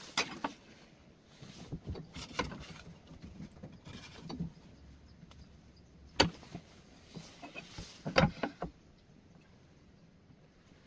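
Handling knocks and rubs at the workbench: a pine board shifted in the vise and a metal square set against its end. There are a few scattered sharp knocks with short scraping between them, the loudest two about six and eight seconds in.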